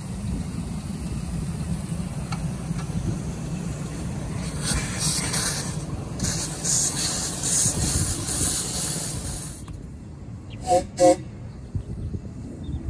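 Ridable live-steam model of a 4-6-2 Pacific, diesel-fired, starting away under a steady low rumble, with pulsing hiss of steam blowing from the cylinders for about five seconds. Near the end its whistle gives two short toots in quick succession.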